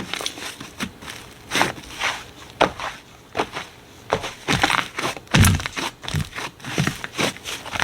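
Slime being squeezed and pressed by hand: a run of short, irregular squishes roughly one a second, the loudest about five and a half seconds in.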